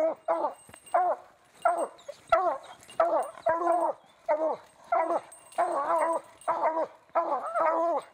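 A hunting hound baying at a treed mountain lion: repeated barks, about two a second, some drawn out, each dropping in pitch at the end. This is the hound's tree bark, the sign that the cat is treed.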